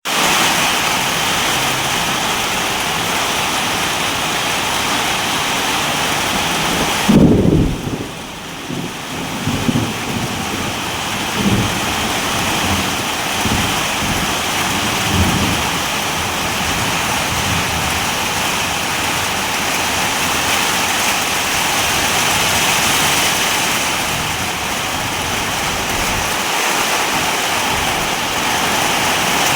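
Steady heavy rain hiss. About seven seconds in a loud low clap of thunder breaks in, then rumbles on in several weaker swells for about eight seconds.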